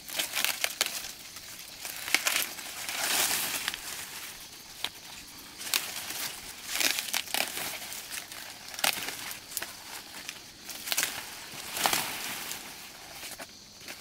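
Dry rustling and crinkling in irregular strokes, roughly one a second, some of them longer and drawn out.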